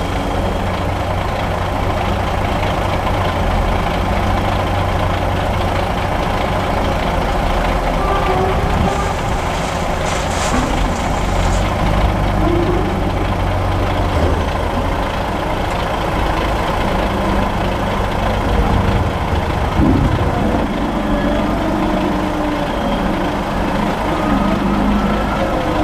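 Diesel engine of a Claas Torion 1914 wheel loader running under load and rising and falling in pitch as it scoops and tips chopped maize, over a heavy truck's engine idling. A brief hiss comes about ten seconds in.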